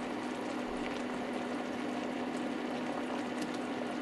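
Coconut milk and pork mixture simmering in a stainless steel pot beneath a layer of dried taro leaves, a steady bubbling noise with a few faint ticks. A constant low hum runs underneath.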